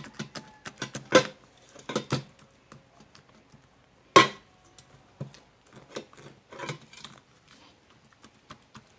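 Kitchen utensil knocking and clinking against a bowl while fish roe and duck eggs are mashed and mixed: a run of quick taps with a few louder knocks, the loudest about four seconds in with a short ring.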